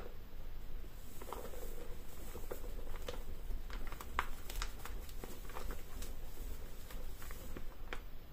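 Rustling and crinkling of a flour bag being tipped and shaken over a stainless steel mixing bowl, with scattered soft ticks and patters as glutinous rice flour pours in.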